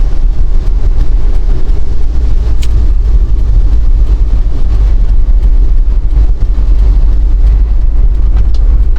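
Heavy, steady low wind rumble buffeting the microphone over the noise of a vehicle on the move, with a faint tick about two and a half seconds in and another near the end.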